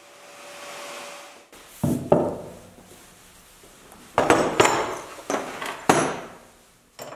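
A paint spray gun hissing briefly, then after a cut several sharp metal knocks and clanks in three bunches as a steel wheel hub and metal tools are handled on a wooden workbench.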